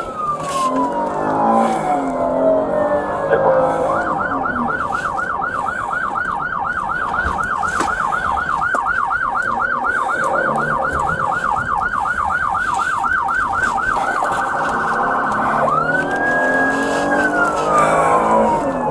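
Police car siren cycling through its tones: a long wail falling away, then a fast yelp at about four cycles a second for about ten seconds, a brief, even faster warble, and a rise into another long wail that falls away near the end.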